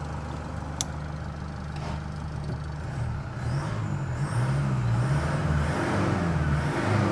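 High-mileage Toyota Hilux 3.0 four-cylinder turbo diesel idling, then revved from about three seconds in, its note rising and falling. A sharp click about a second in is the hood release being pulled.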